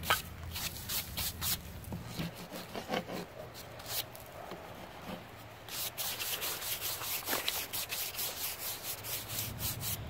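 Stiff bristle brush sweeping sawdust off the sawn face of a freshly milled walnut slab, in quick repeated strokes, several a second, with a short lull partway through.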